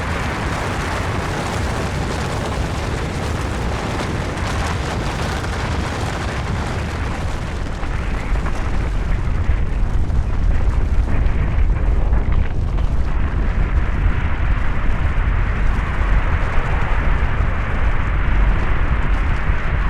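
Avalanche sound effect: a continuous rushing rumble of sliding snow. About eight seconds in the deep low rumble swells louder while the higher hiss thins out.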